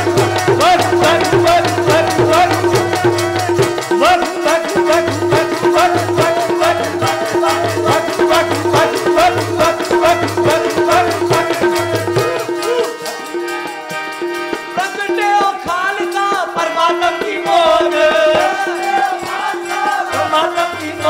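Kirtan music: a harmonium holds a steady tone under the melody while tabla keep a low beat and hand-held rattles click fast and continuously. About two-thirds of the way through, the tabla bass and most of the rattling drop out, leaving voices singing over the harmonium.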